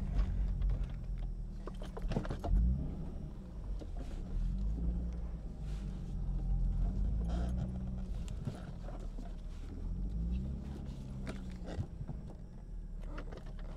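2005 Infiniti G35 sedan's 3.5-litre VQ35DE V6 running at low speed as the car rolls slowly and parks, its engine note rising and falling gently several times. A brief thump about two and a half seconds in.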